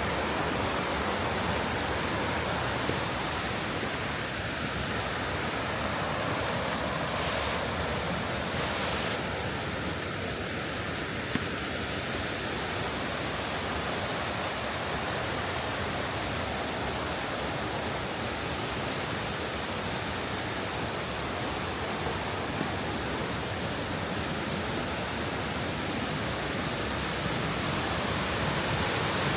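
Steady rush of water from a mountain stream and its waterfalls: an even, unbroken noise.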